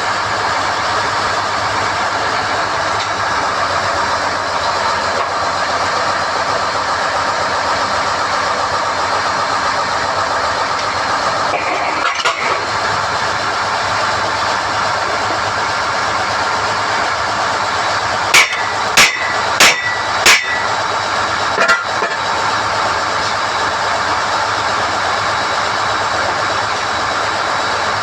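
SDH-1600 core drilling rig running steadily while NQ drill rods are hoisted out of the hole. About two-thirds of the way in come four sharp metallic clanks in quick succession, ringing briefly, with one more shortly after.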